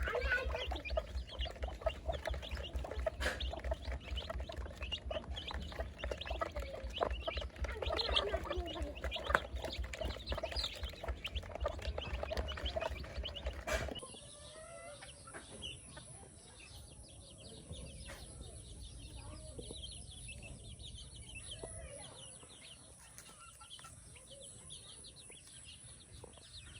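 Chickens clucking and chirping, many short calls over a steady low hum. About halfway through, the sound cuts to a quieter stretch of faint chirping.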